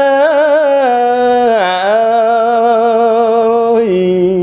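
Khmer smot, a Buddhist monk's solo chanted poetry: one man's voice draws out a long melismatic phrase. It holds its notes with quick wavering turns near the start, dips in pitch about one and a half seconds in, and steps down to a lower note near the end.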